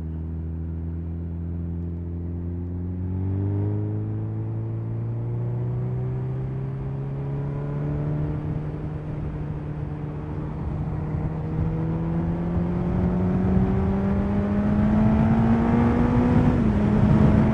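Suzuki Hayabusa's inline-four engine pulling under acceleration, its pitch climbing steadily as the bike gathers speed, with a short dip in pitch near the end. Wind rush builds as the speed rises.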